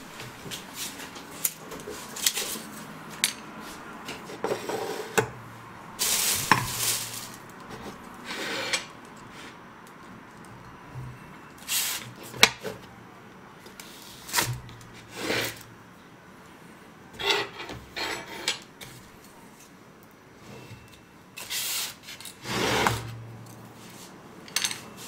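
Plates, bowls and cutlery being handled and set out on a table: scattered clinks and knocks with bursts of rustling.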